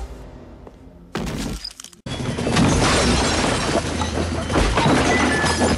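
Movie fight sound effects: a burst of glass shattering about a second in, then, after an abrupt cut, a loud, dense run of crashes and impacts.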